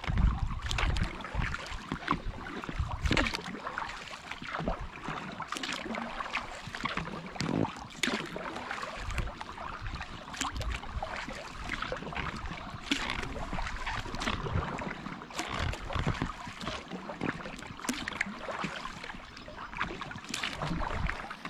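Kayak paddle strokes in calm water: a splash every few seconds as a blade enters and leaves the water, with a patter of drips between strokes.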